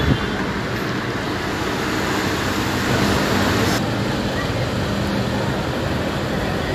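Busy street ambience: a steady wash of traffic noise with a faint hum underneath. The background changes abruptly a little under four seconds in.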